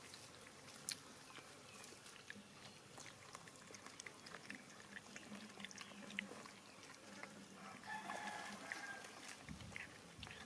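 A puppy licking and chewing food, heard as faint, scattered small wet clicks. A brief faint animal call comes about eight seconds in.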